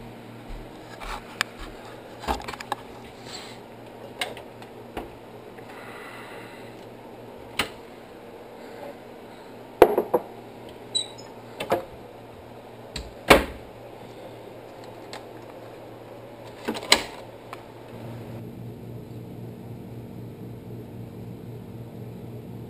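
Scattered knocks and clicks of kitchen cupboards and objects being handled, a few seconds apart, the loudest about halfway through, over a steady low hum that grows louder near the end.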